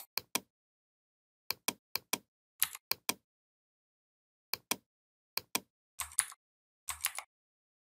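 Computer mouse and keyboard clicking: short sharp clicks, mostly in quick pairs, repeated about nine times at irregular intervals, with silence between.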